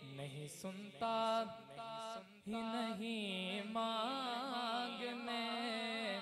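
A man sings a naat into a hand microphone in long held notes, the pitch wavering and bending up and down.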